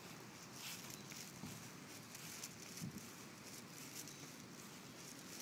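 Faint rustling and soft, irregular ticks and taps over a low background hiss.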